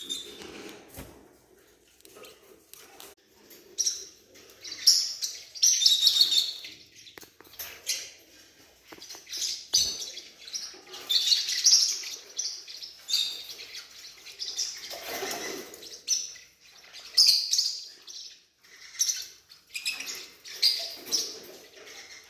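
Newborn forpus parrotlet chicks cheeping in repeated bursts of high-pitched chirps, some short and some longer.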